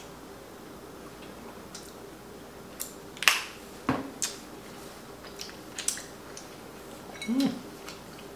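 Light, scattered clicks and knocks of cutlery and dishes at a meal, the sharpest few about three to four seconds in, over a faint steady hum; a short low voice sound near the end.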